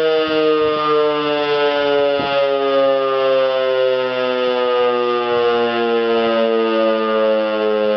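Civil-defence warning siren sounding a test alarm: a loud, steady chord of several tones that slides slowly and evenly lower in pitch.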